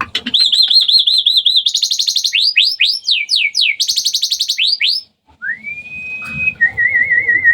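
Hybrid jalak suren (Asian pied starling) singing: fast clicks, then quick repeated warbling notes and rapid sweeping whistles. It breaks off about five seconds in, then gives a rising whistle followed by a steady wavering whistled trill.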